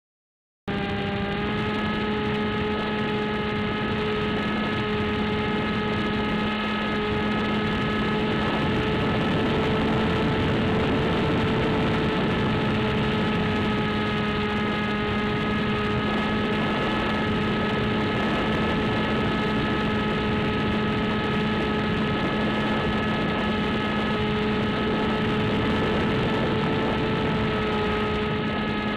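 Electric motor and propeller of an AXN Floater Jet RC foam plane running steadily in flight, a constant whine with wind rush, heard through the plane's onboard camera microphone. It starts abruptly just under a second in.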